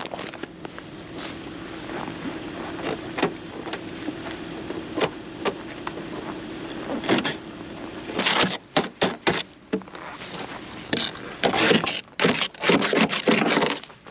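A steady hum with scattered knocks and rustles, then, from about eight seconds in, a run of quick, loud scraping strokes as a plastic snow brush sweeps snow off the back of a car.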